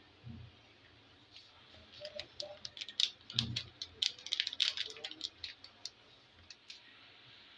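A spoon clicking and tapping against a spice container while ground spices are added to meat in a pot: a quick run of small sharp clicks and rattles over a few seconds, with one soft low thump in the middle.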